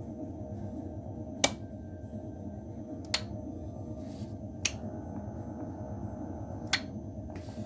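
Light switch clicked four times, single sharp clicks a second or two apart, over a steady low hum.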